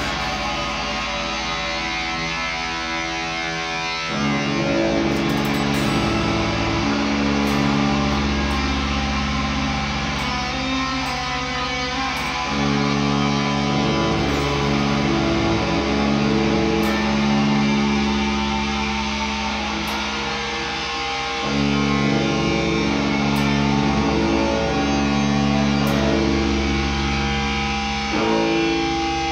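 Improvised guitar and bass guitar duo playing long sustained notes and chords over held low bass notes, the harmony shifting every several seconds.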